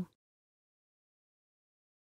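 Near silence: the end of a spoken word cuts off right at the start, then dead silence.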